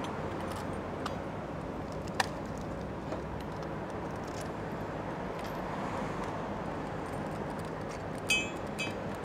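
Hands handling a Thule Wingbar Evo roof-rack foot, black plastic with a metal bolt. A sharp click comes about two seconds in, with a few fainter clicks around it. Near the end there is a short metallic clink and jingle, all over steady background noise.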